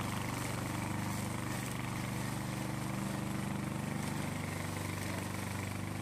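Gasoline engine of a tracked remote-control crawler lawn mower running steadily while it mows through dry grass and brush.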